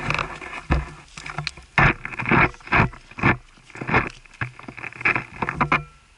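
Metal tongs clattering and scraping against a small charcoal grill's grate as kebab skewers are lifted off: a quick run of short knocks and scrapes that stops near the end.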